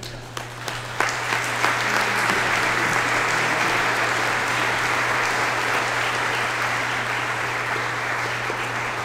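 Audience applauding: a few scattered claps at first, then from about a second in a full, steady round of clapping that begins to fade near the end.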